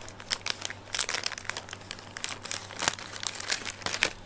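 Thin glossy plastic bag crinkling and rustling in the hands, with irregular crackles, as it is cut open with scissors.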